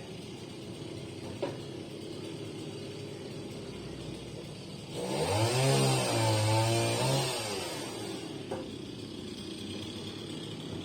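Chainsaw engine running at idle, blipped up to high revs for about two seconds midway, then dropping back to idle. A small click sounds about a second and a half in.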